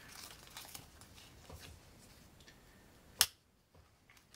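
Light rustling and scraping of folded cardstock Foldscope parts being handled and slid together, with one sharp click about three seconds in.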